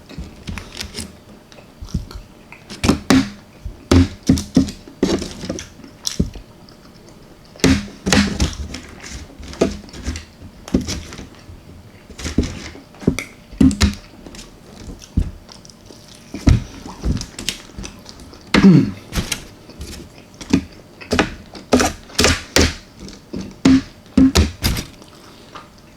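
A person eating baked chicken parmesan close to the microphone: chewing and mouth sounds with frequent irregular clicks and taps.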